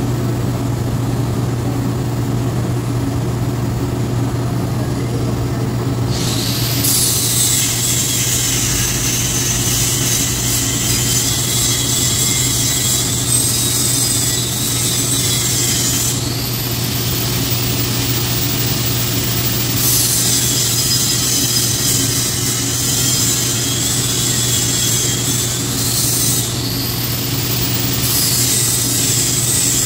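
TIG welding arc on stainless steel pipe hissing in long stretches over the steady hum of the welding machine. The hiss comes in about six seconds in and then drops out and returns a few times.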